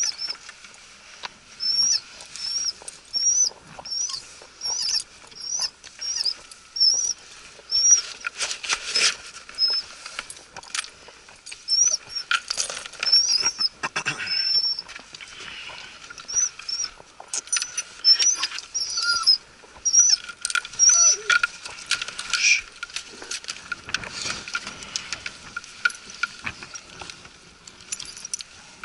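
English pointer whining in its dog box, short high-pitched squeaky whines repeated about twice a second at first and then in irregular runs, the eager whining of a gun dog waiting to be let out to hunt. Clicks and knocks of the box and collar being handled come in among them.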